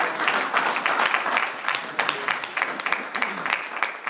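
Audience applauding, many hands clapping at once, easing off near the end.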